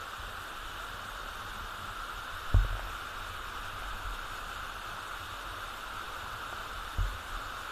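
Steady rushing of a waterfall, a constant even hiss. Two short low thumps break it, one about two and a half seconds in and a softer one near the end.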